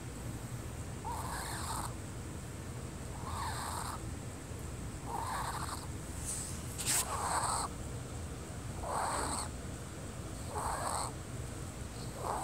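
Wheezing breaths, about one every two seconds, each a short noisy wheeze; a sharp click about seven seconds in.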